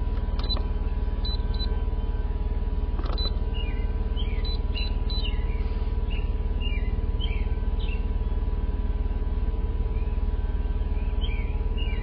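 Jeep Cherokee Trailhawk engine idling, a steady low hum that drowns out the ICECO 60VL fridge's compressor running alongside it. Birds chirp now and then above it.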